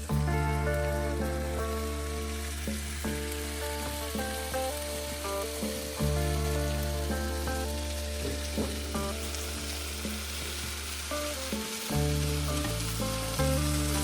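Food sizzling and frying in a pan, heard under background music with long held bass notes that change about every six seconds and a melody above.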